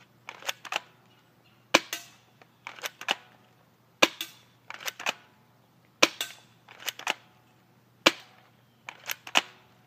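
Spring airsoft gun fired about every two seconds: four sharp cracks, each followed by a few lighter clicks, as it is shot and recocked at a rusty metal target.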